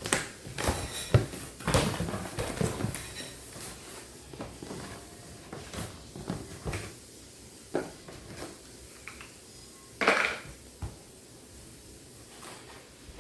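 Knocks, clicks and clatter of a boxed air fryer toaster oven and its packaging being opened and handled, busiest in the first few seconds, with one louder, longer noise about ten seconds in.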